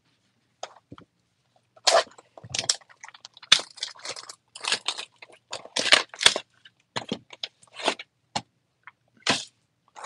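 A 2023 Topps Finest baseball hobby box being torn open by hand: irregular crackling and crinkling of its wrapping and cardboard.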